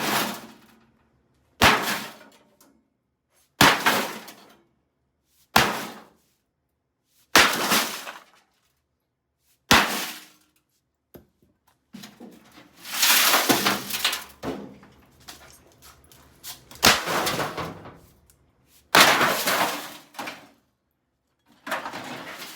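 Sledgehammer blows smashing a microwave oven: six sharp strikes about two seconds apart, then several longer crashing, rattling noises of the casing and parts breaking up.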